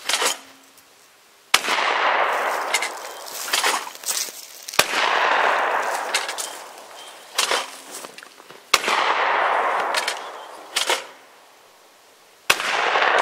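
Shotgun firing at clay targets: four shots about three to four seconds apart, each followed by a long echo that dies away. Lighter clacks come between the shots.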